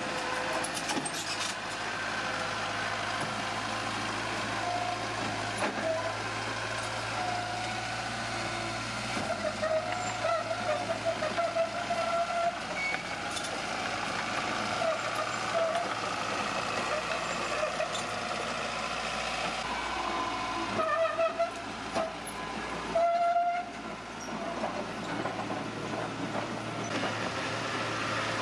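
Bulldozer working: a steady diesel engine with wavering, squeal-like tones that swell several times, typical of a crawler's tracks.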